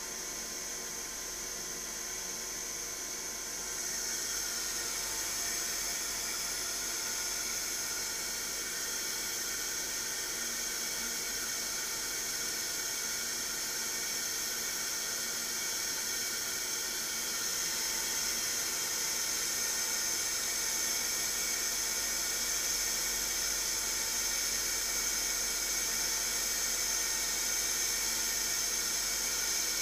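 Manurhin KMX 326 Swiss-type CNC lathe running: a steady, high-pitched machine whine with hiss. It gets louder about four seconds in and again after about seventeen seconds.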